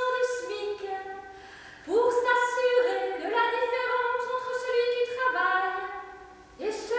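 A woman chanting a French text through a megaphone in the manner of a liturgical chant, holding long notes on one reciting pitch with short upward slides into each new phrase. It breaks off briefly about two seconds in and again near the end.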